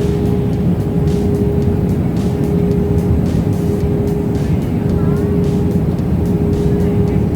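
Steady low rumble of a vehicle in motion, with a constant droning hum over it.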